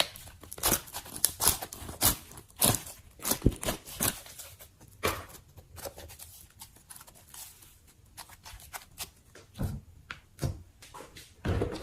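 Slime being poked and pulled by hand, making irregular sticky clicks and crackles that thin out in the middle and pick up again near the end.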